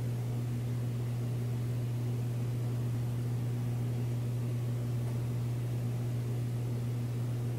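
Steady low hum over a faint even hiss, with no change in level or pitch.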